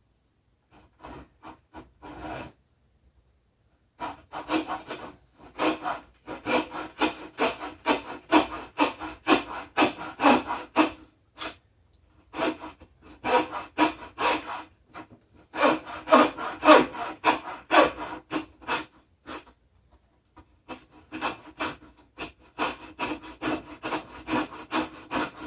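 Hacksaw cutting wood by hand in quick back-and-forth strokes, a few a second, stopping briefly a few times and then starting again.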